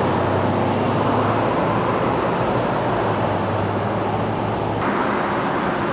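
Steady road traffic noise, with a low hum underneath that stops about five seconds in.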